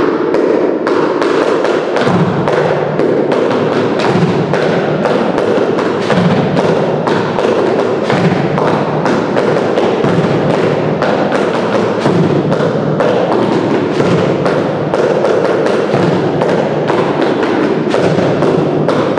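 Handmade percussion instruments played together as a group: a large round drum struck with a mallet, drums and boxes struck with sticks, and a bottle shaker, in quick steady strokes.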